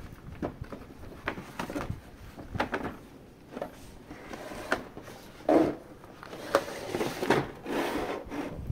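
Hands handling collectible-figure packaging: scattered, irregular knocks and taps, with rubbing and scraping. The loudest knock comes about five and a half seconds in, and the rubbing thickens near the end.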